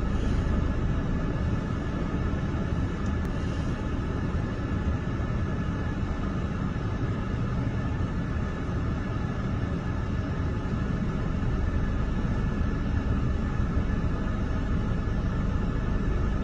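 Heavy diesel truck engine idling: a steady low rumble with no change in pace.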